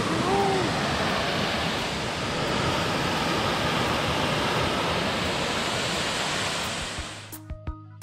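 Waterfall pouring into its rock plunge pool: a steady rush of falling water. About seven seconds in it fades out and background music with a steady beat begins.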